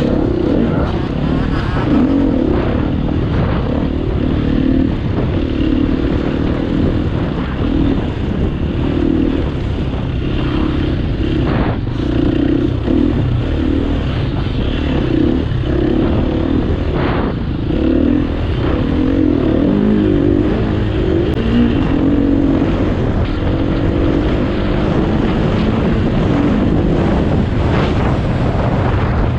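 KTM EXC 250 F four-stroke single-cylinder enduro engine running hard under load, its revs rising and falling continuously as the bike is ridden offroad.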